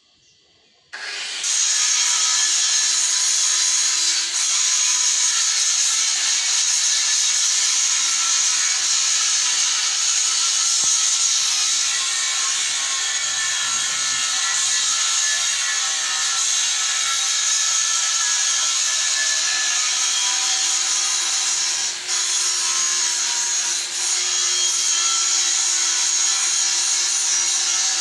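A machine or power tool starts about a second in and runs steadily and loudly, at an even pitch and level.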